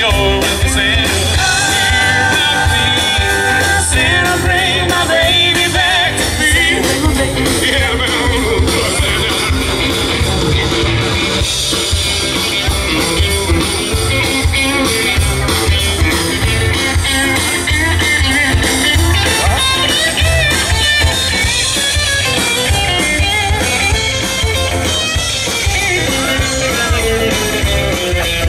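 Live band playing an upbeat rock-and-roll Christmas song, with drums, electric guitar and saxophones, heard loud through the crowd.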